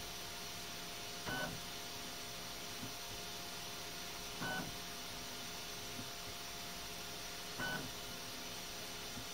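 Flashforge Adventurer 5M Pro 3D printer running its automatic first-run calibration: a short whirring move about every three seconds, three times, with a faint click halfway between each, over a steady fan hum.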